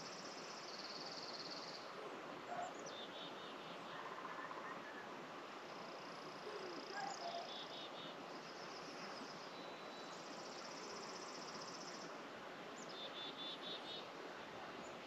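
Faint outdoor nature ambience: several high, pulsing trills and short chirps from birds or insects come and go over a steady hiss.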